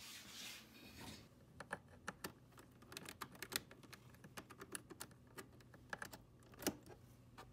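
Faint typing on a computer keyboard: irregular, sharp key clicks, several a second, with one louder click near the end.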